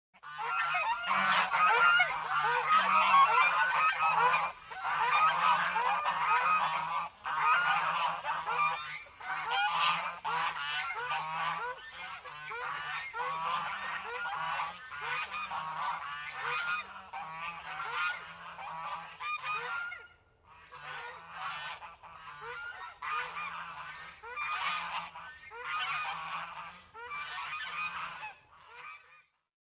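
A small group of geese honking, many calls overlapping, louder in the first several seconds and a little quieter after that.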